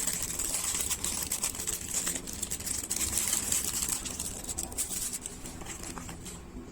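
Light clicks and rustles of a small boxed wristband gadget and its packaging being handled during unboxing.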